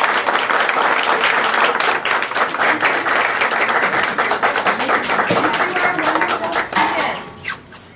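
Audience applauding: dense hand clapping that dies away about a second before the end.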